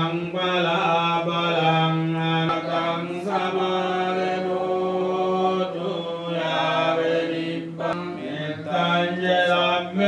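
Buddhist monks chanting Pali verses through a microphone, a low voice drawn out on long held syllables with a few short breaks.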